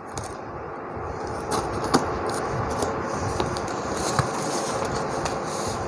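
A knife slitting packing tape and cardboard on a parcel box, a steady scraping and rasping with scattered small clicks and crackles as the flaps are cut and pulled open.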